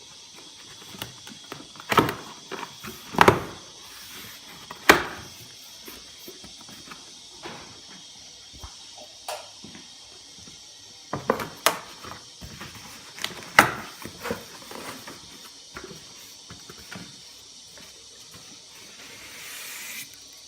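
Cardboard box and packaging being handled during an unboxing: scattered taps, knocks and rustles, with a few louder thumps about two, three and five seconds in and again around eleven to fourteen seconds. A soft sliding rustle comes near the end.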